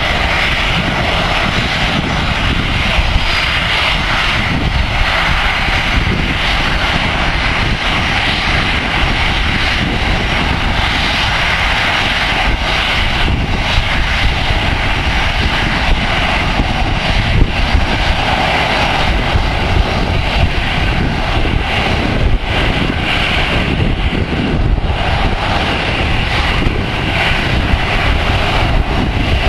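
Boeing 737-500 airliner's CFM56-3 turbofan engines running steadily at low taxi thrust as the jet taxis and lines up on the runway: an even jet rush with a low rumble, no spool-up.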